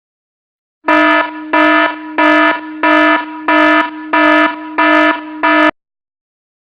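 Electronic alarm buzzer sounding in about eight loud, harsh pulses, roughly three every two seconds, then cutting off abruptly.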